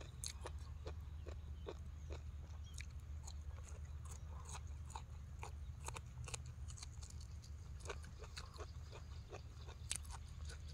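A person chewing crunchy food close to the microphone: a run of irregular crisp crunches as a boiled bamboo shoot is bitten and chewed.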